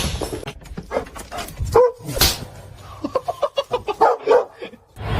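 An animal's short calls: a brief pitched call about two seconds in, then a quick run of short calls, about six a second, in the second half.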